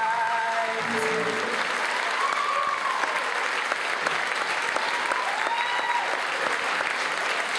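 Theatre audience applauding as a song's last held note dies away about a second in, with a couple of cheers rising above the clapping.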